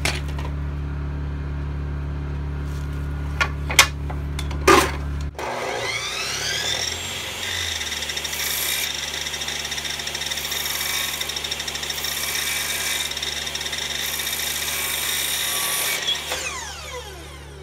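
Miter saw motor spinning up with a rising whine about five seconds in, running steadily for about ten seconds while cutting a thin strip of wooden door stop, then winding down near the end. Before it starts there is a steady low hum and a few sharp clicks.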